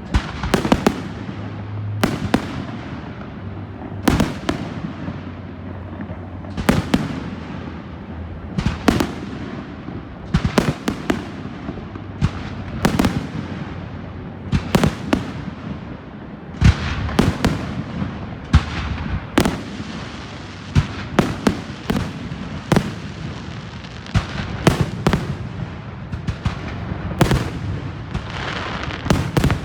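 Fireworks salute: aerial shells bursting one after another, sharp bangs every second or two, often in quick pairs, each followed by a trailing crackle.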